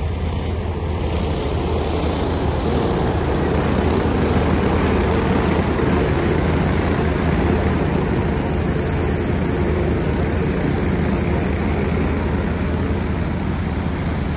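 Engines of a pack of race cars running at speed, a steady drone that swells as the field comes through the turn near the middle and eases slightly as it moves away.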